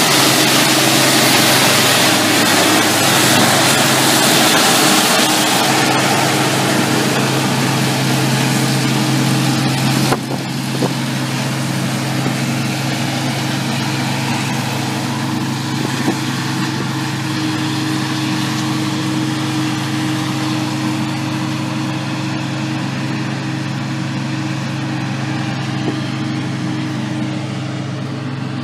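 Combine harvester running steadily through corn, its engine and threshing machinery giving a loud, even drone with a low hum. The drone eases a little about ten seconds in, and a few light knocks come through.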